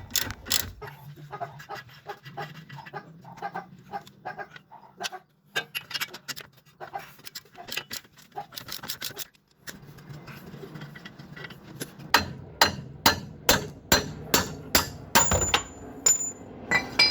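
Socket ratchet clicking as a nut is run off a steering-knuckle bolt, in short uneven runs. Then comes a steady series of about a dozen hammer blows, two to three a second, knocking out a tapered, splined bolt that is stuck in place.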